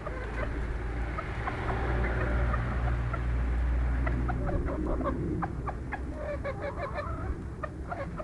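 Golden bantam Leghorn hens clucking in short, clipped notes, thickest in the second half. A low rumble runs under the first half.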